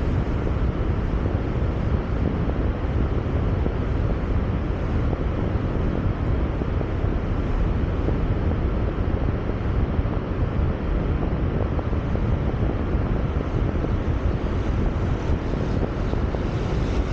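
Steady wind rush on the microphone of an action camera on a moving car, mixed with road and traffic noise.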